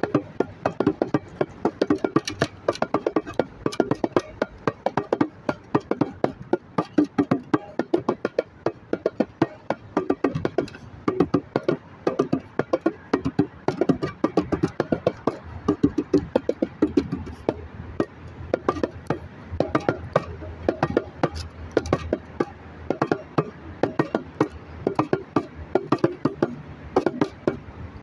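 Bongos played by hand: a continuous run of quick, sharp strikes, several a second, without a break.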